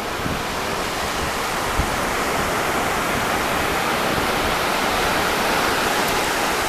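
Shallow sea surf washing in over wet sand at the water's edge, a steady rushing that grows slightly louder, with one brief knock about two seconds in.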